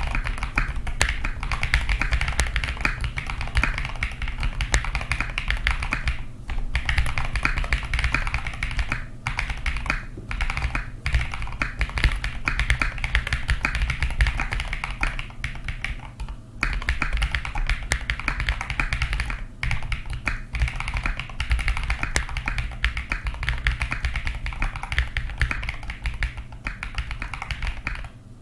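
Fast continuous typing on a Sam S65v2 mechanical keyboard with Gateron Modern Grey switches and MT3 Serika keycaps: a dense stream of keystroke clacks, with a few brief pauses between bursts.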